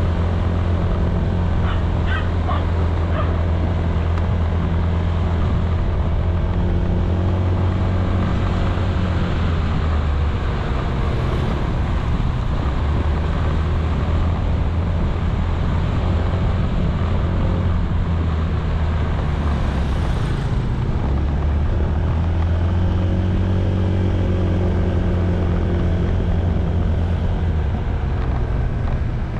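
Honda ADV160 scooter's single-cylinder engine running steadily at riding speed, its note rising and falling a little as the speed changes, over road and wind noise.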